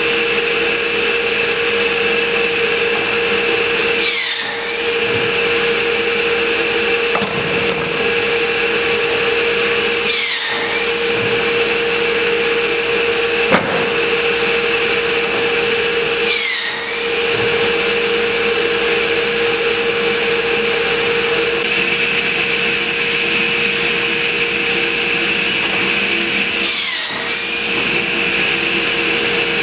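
Crosscut Solutions CS24P pop-up cut-off saw running with a steady whine, making four cuts through a clamped stack of boards about six seconds apart. Each cut is a brief swoop in pitch as the blade rises through the wood. A single sharp click comes about halfway through.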